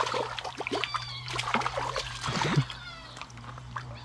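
Small hooked brook trout splashing and thrashing at the surface of a shallow stream as it is played in, over the steady rush of the stream and some scattered clicks.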